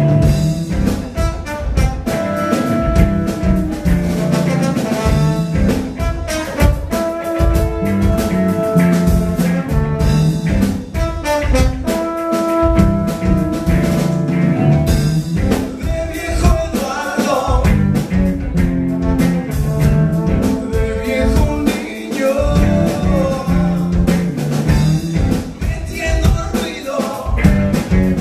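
Rock band playing live: drum kit, electric guitars, bass guitar and trombone.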